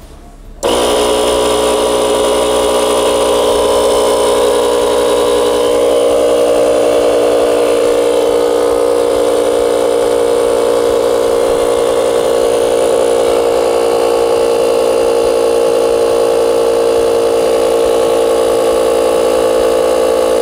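JF.EGWO 2000A battery-powered portable air compressor switching on suddenly under a second in and running loud and steady, pumping up a bicycle tyre.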